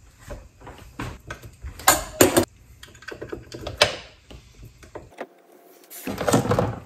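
Small steel parts of a Bridgeport mill's pulley assembly clicking and knocking as a ring is worked into place by hand: a few sharp clicks about two seconds in and again near four seconds. Near the end, a short metallic clatter as a pin spanner wrench is picked up off the bench.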